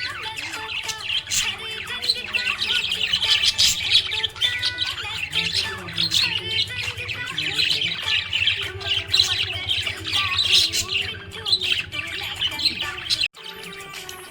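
Budgies (budgerigars) chirping and warbling in a fast, continuous chatter, with a brief sudden dropout near the end.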